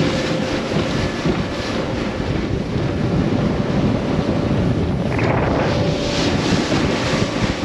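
Wind buffeting the microphone over the rush of water as a small fishing boat runs through choppy water, with a faint steady motor hum underneath. A brief louder rush comes about five seconds in.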